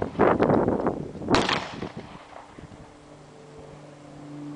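A single shot from a Beretta pistol about a second in, sharp, with a short ringing tail. After it a faint low steady hum remains.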